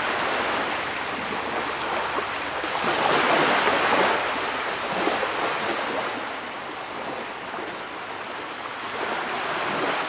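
Sea surf washing in: a steady rush of waves that swells about three to four seconds in and eases later.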